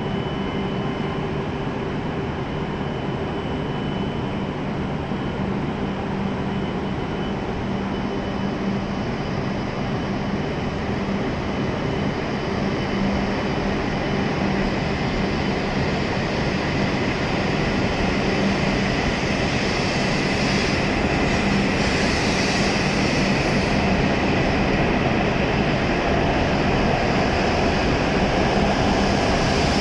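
E7/W7-series Hokuriku Shinkansen train starting off and pulling out along the platform. A steady electric hum at first, then a rush of wheels and air that grows steadily louder as the train gathers speed.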